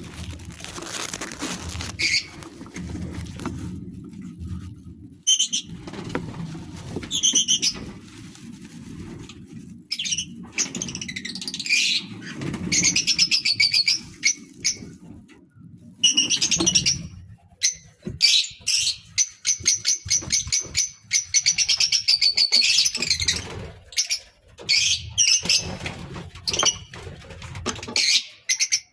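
A colony of lovebirds chirping and chattering in quick, shrill bursts, many overlapping calls at once, over a low rumble.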